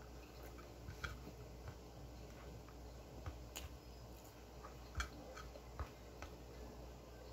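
A person eating with their hand, quiet chewing and small wet mouth clicks, with a few sharper clicks about one, three and a half and five seconds in, over a low steady hum.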